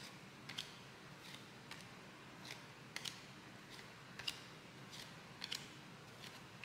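Trading cards being flipped through one by one in the hands: faint, light clicks of card edges snapping past each other, irregularly about twice a second.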